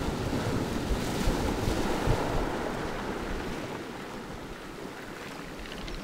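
Sea wave breaking against rocks and washing up over a pebble beach: a rush of surf, loudest in the first couple of seconds and then easing off. Wind gusts on the microphone add a low rumble.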